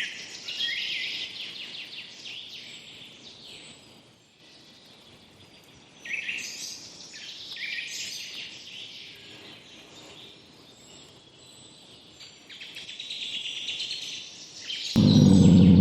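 Birds chirping and trilling in bursts over faint insect and outdoor ambience. Near the end a loud, low, steady-pitched sound starts suddenly.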